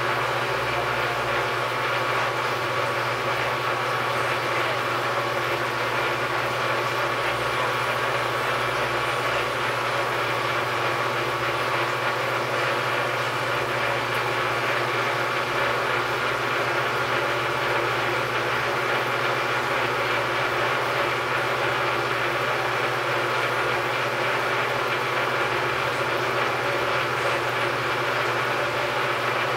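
Metal lathe running steadily while a bearing block is lapped onto the spinning shaft: a constant drone of motor and gearing with a low steady hum.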